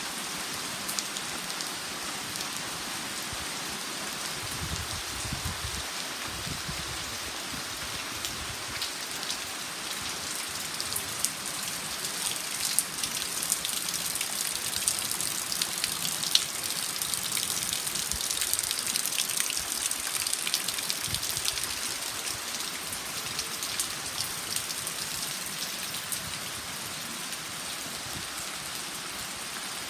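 Heavy rain falling on standing water, puddles and foliage: a steady hiss full of close, crisp drop patter, swelling somewhat louder through the middle.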